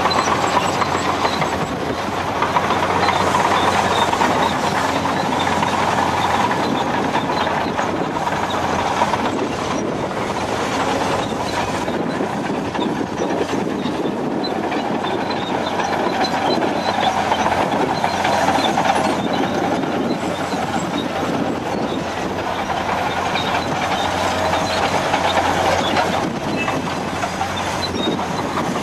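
Heavy earthmoving machines running steadily: a Caterpillar 385C excavator's diesel engine and hydraulics working as it digs and dumps earth into a Caterpillar 769D dump truck, with metallic clatter from tracked machinery.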